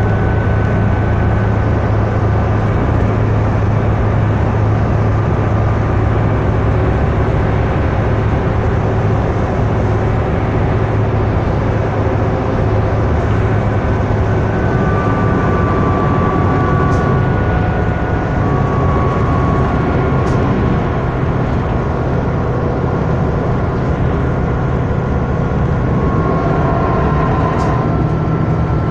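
Cabin sound of a 2011 New Flyer D60LFR articulated bus cruising on the freeway: the steady low drone of its Cummins ISL9 inline-six diesel mixed with road and tyre noise, with faint whining tones above it and a few light clicks.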